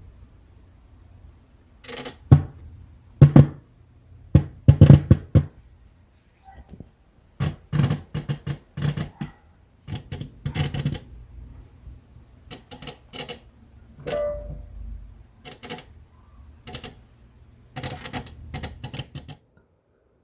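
Yamaha CLP-230 digital piano giving sharp, spark-like ticks in irregular clusters over a faint steady low hum, which stops near the end. The owner ties the ticking fault to a switch being set to 'on'.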